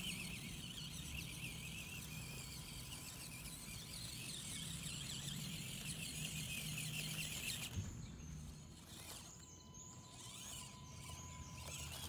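Axial SCX24 1/24-scale crawler's small brushed electric motor and gearbox whining as it drives over gravel, the high pitch wavering with the throttle. The whine stops about eight seconds in.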